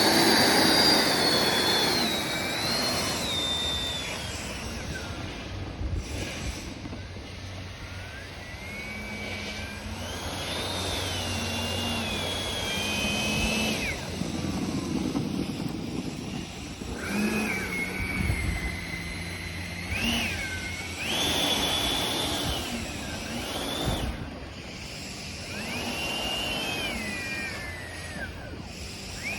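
A 3D-printed RC model jet's motor whining as it taxis. The throttle is pushed up and eased back about five times, so the pitch rises and falls in surges between lower stretches.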